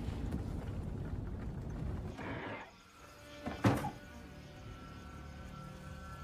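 Tense horror-film soundtrack: a low rumbling score that drops away, a sudden loud hit about three and a half seconds in, then a quiet, steady, ominous drone.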